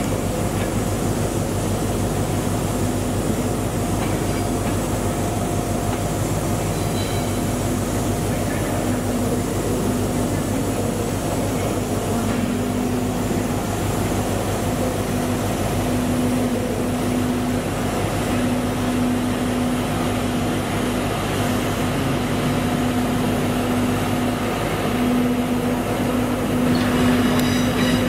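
Class 91 electric locomotive at the platform giving a steady electrical hum, with a droning tone that comes and goes. Near the end the sound grows louder as a Class 180 diesel unit pulls in, with some wheel squeal.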